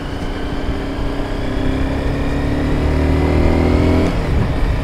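A Honda CBR 250R's single-cylinder engine pulls under throttle while riding, its pitch and loudness rising steadily for about four seconds. Near the end the pitch drops suddenly as the throttle is rolled off or a gear is changed.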